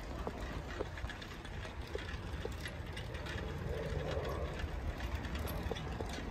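Bicycle rolling along an asphalt street, with a low rumble and light, irregular clicking and rattling from the bike.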